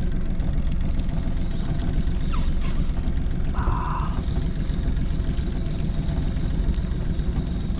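Fishing boat's engine running, a steady low rumble, with a short hiss about halfway through.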